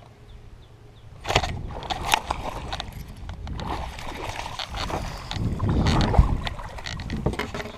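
Quiet at first, then about a second in a sudden hookset sets off a largemouth bass fight: the hooked bass splashing and sloshing in shallow water at the side of a boat, mixed with the rustle and knocking of rod handling close to the chest-mounted microphone.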